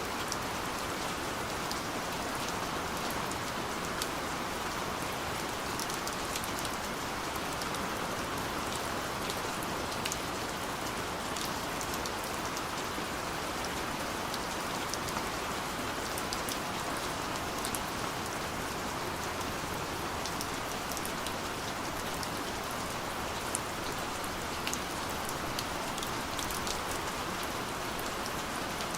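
Steady light rain falling, with a dense, even hiss and scattered individual drops ticking on a surface.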